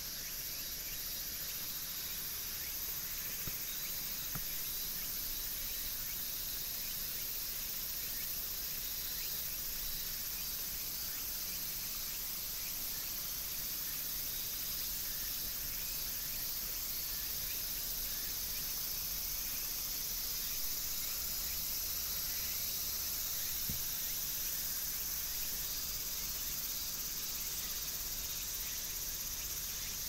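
Steady outdoor ambience: an even high hiss with faint scattered ticks, and no bird call standing out.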